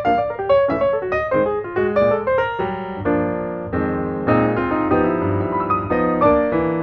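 Background piano music: a run of quick notes, then sustained chords.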